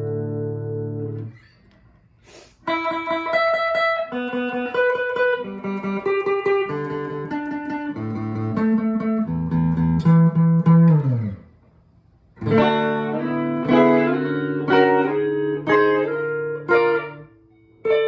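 Jay Turser Les Paul-style electric guitar with twin humbuckers: a ringing chord is cut off about a second in, then two phrases of single-note lead lines follow with short pauses between them, the first ending on a low note that slides down.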